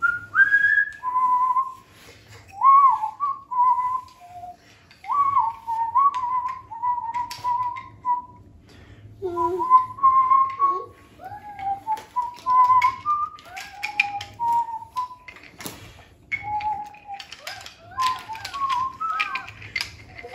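A person whistling a tune in single sliding notes, in short phrases with pauses. Wooden toy train track pieces and trains clack now and then, more often in the second half, with one sharper knock about three-quarters of the way through.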